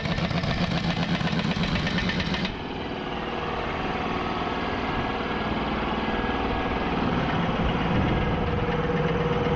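An engine running steadily, with a pulsing sound that changes abruptly about two and a half seconds in.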